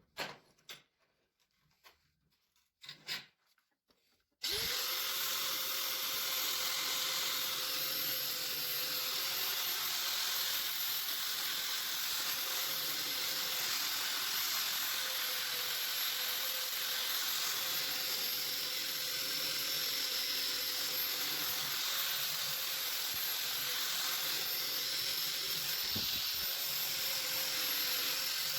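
Homemade sanding machine switched on about four seconds in, after a few light clicks, then running steadily with a constant hum and a high whine over a loud hiss.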